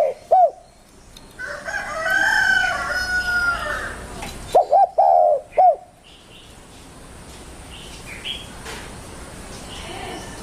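Spotted dove (tekukur) cooing: a short phrase of low, arched coo notes at the very start and a four-note phrase about halfway through. Between them a longer, higher-pitched call from another bird sounds for about two seconds, with faint chirps later on.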